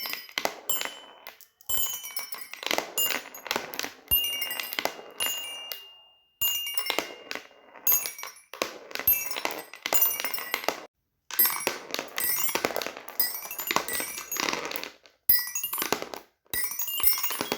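Fidget toys being handled: rapid clicks and clinks with short ringing pings, in spurts broken by brief silences.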